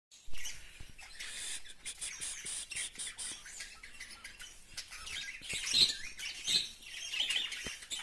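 A colony of budgerigars chattering and chirping continuously, with a few louder, sharper calls in the second half.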